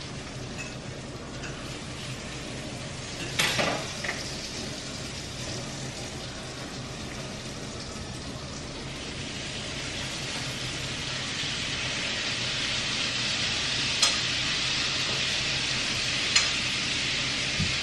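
Steak frying in a pan, a steady sizzle that grows louder from about halfway through. A few sharp knocks stand out over it, the loudest about three seconds in.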